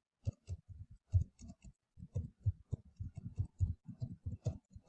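Typing on a computer keyboard: a quick, irregular run of key clicks, about five to seven a second.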